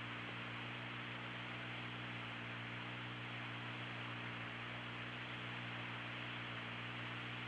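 Steady hiss and low electrical hum of an open Mission Control voice loop with no one talking.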